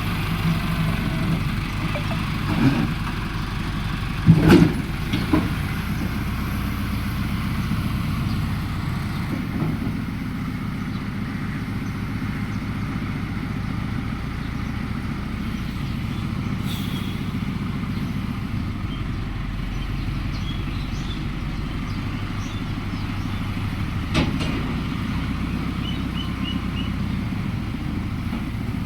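A farm machine's engine running steadily, with a few sharp knocks, the loudest about four and a half seconds in.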